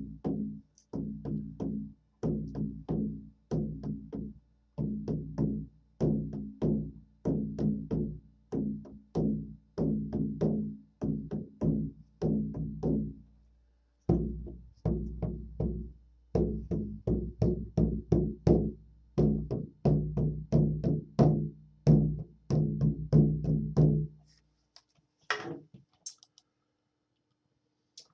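Handmade 17-inch, 12-sided horse-skin frame drum struck with a padded beater in a steady beat of about two to three strikes a second, each stroke ringing on with a low tone. The playing breaks briefly about halfway through and stops a few seconds before the end, followed by a single knock.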